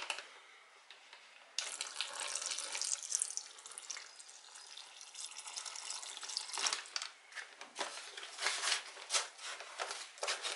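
Water poured from a plastic measuring jug onto dry Zoo Med Excavator Clay powder, a steady splashing hiss that starts suddenly about a second and a half in. In the second half a plastic shovel scrapes and stirs the wetted clay in irregular strokes.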